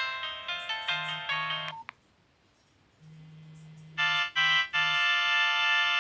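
Nokia 101 ringtones: a quick melody of short electronic notes ends about two seconds in. After a moment of silence, the next ringtone starts with a low tone, then two short chords and a long held chord.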